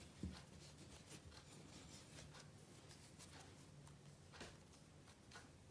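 Near silence: faint soft rubbing and light taps of bread dough being rolled under the hands on a kitchen counter.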